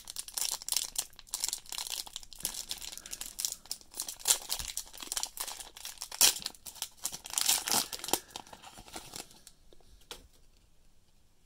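Plastic wrapper of a 2020 Prizm football card pack crinkling and tearing as it is opened by hand. The rustling stops about nine seconds in.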